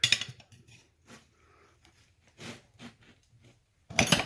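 Metal tire spoons clacking and scraping against a small mower wheel's rim and tire bead as the tire is pried off: a burst of clatter at the start, a few faint taps, then another burst of clatter near the end.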